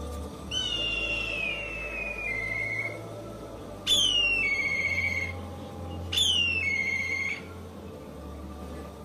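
Black kite calling three times: each call a shrill whistle that drops in pitch and then holds a steady note, the first call the longest.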